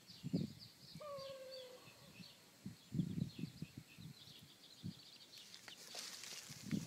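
Chickens dust bathing: chicks peep in a steady run of short, high, downward chirps, and a hen gives one lower falling call about a second in. Soft thumps come through, with a rustle of scratched and flicked dirt near the end.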